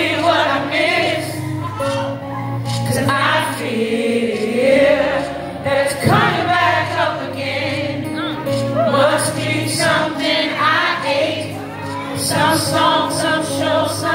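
Live gospel song: a man singing into a microphone over acoustic guitar, keyboard, bass guitar and drums.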